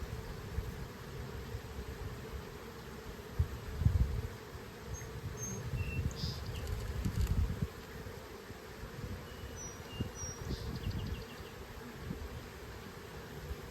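Honeybees buzzing around an open hive during an inspection, a steady hum. A few low rumbles and bumps on the microphone, loudest about four and seven seconds in.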